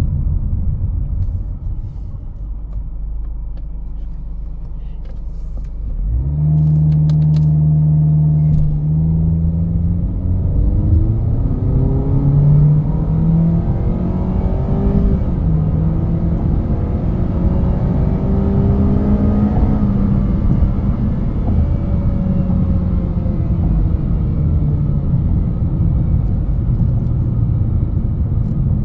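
Honda HR-V Sport AWD on the move: low road rumble, then about six seconds in its 1.8-litre four-cylinder engine note comes in strongly as it accelerates, with tones rising steadily through the middle.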